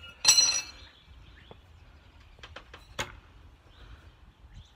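Steel throwing knives clinking together with a bright, ringing metal clang just after the start. About three seconds in comes a single sharp impact as a thrown knife strikes the tree trunk.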